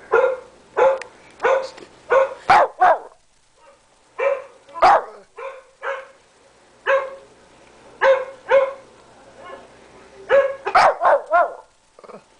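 Shih tzu barking over and over in short, sharp barks. There is a brief pause about three seconds in, and a quick flurry of barks near the end.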